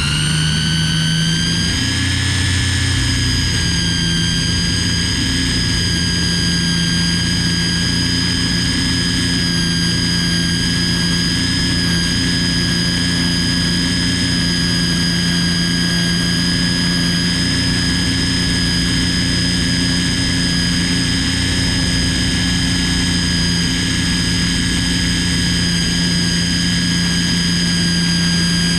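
Ryobi string trimmer running at full speed, its whine rising in pitch for the first second or two and then holding steady and high.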